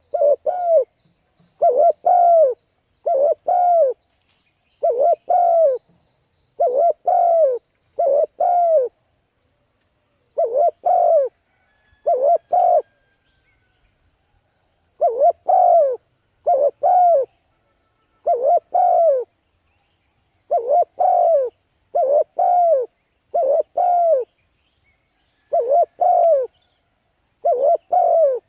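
Spotted dove cooing: short phrases of two or three low, falling coos, repeated every second or two with a couple of longer pauses.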